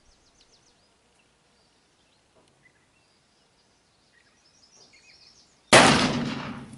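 A single shot from a black-powder cap-and-ball revolver, loaded with a .451 round ball over 3F black powder, about five and a half seconds in: a sharp crack that dies away over about a second. Small birds chirp faintly before it.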